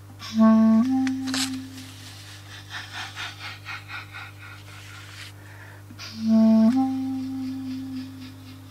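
A wind instrument plays two long low notes about six seconds apart, each starting loud, stepping slightly up in pitch and fading. A soft rapid fluttering comes between the notes, over a steady low hum.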